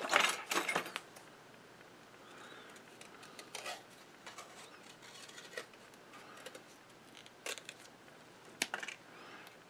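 A brief clatter of tools and card being handled, then a few faint, scattered snips of small scissors cutting a business card into a spacer washer.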